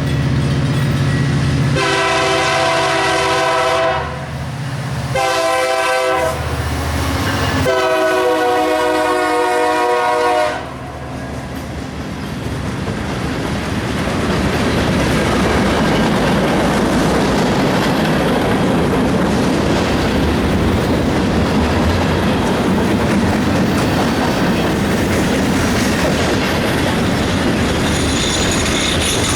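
Union Pacific train passing: the diesel locomotive's engine runs as it approaches, its air horn sounds three blasts, the middle one shorter, then the cars roll by with steady wheel clatter on the rails.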